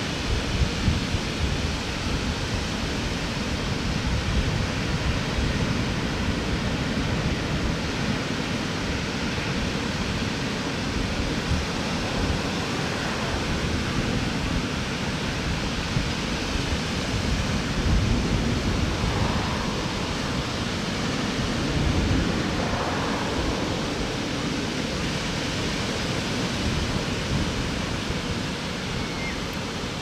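Ocean surf washing onto a sandy beach: a steady hiss of small breaking waves, swelling a little now and then, over an irregular low rumble of wind on the microphone.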